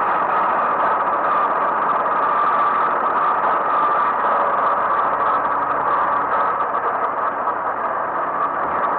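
Kubota B1820 compact tractor's diesel engine running steadily while the tractor tows a loaded two-wheel trailer.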